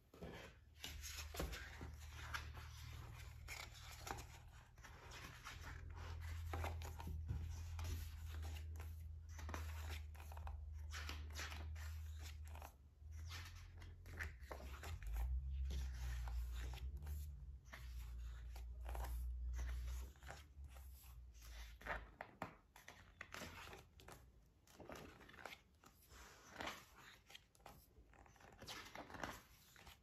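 Pages of a K-pop album's photobook being handled and turned: soft paper rustles and light taps of the book against a table, scattered throughout. A low rumble runs underneath and stops about two-thirds of the way through.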